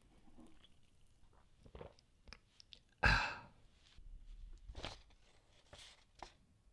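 A yerba mate gourd with a metal straw being handled: soft crunches and scrapes of the dry yerba, with one louder, sharp noisy sound about three seconds in and a few smaller ones after it.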